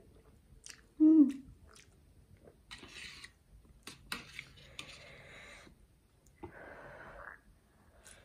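Close-miked eating sounds: Maggi instant noodles being slurped off steel chopsticks and chewed, with wet mouth clicks. The loudest moment is a short hum-like vocal sound about a second in. A breathy rush follows near the end.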